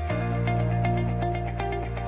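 Background music: a steady bass line with plucked notes in a regular rhythm over it, the chord changing just after the start and again at the end.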